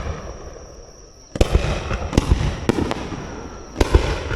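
Aerial fireworks bursting overhead: a tail of crackle from a burst that came just before, then a quick run of sharp bangs from about a second and a half in, each trailing off over about a second.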